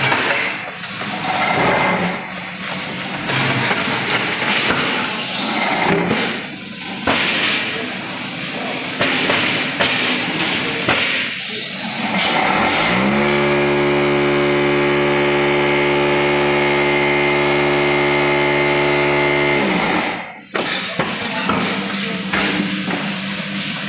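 Concrete paver block machine running: rough clatter and knocking of the mould and tamper head. About halfway through, a loud steady hum rises quickly and holds for about seven seconds, then cuts off suddenly. This is typical of the mould's vibrators compacting the concrete.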